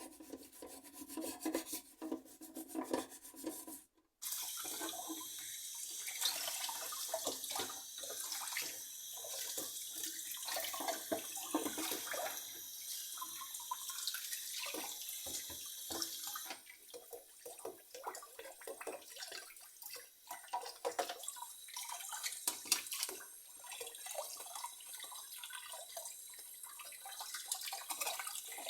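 Scrubbing sounds, then, about four seconds in, tap water running into a sink as plastic keyboard parts are rinsed and handled.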